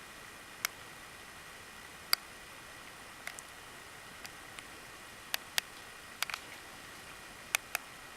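About eight sharp, short clicks at irregular intervals over a steady faint hiss with a thin, high, steady whine.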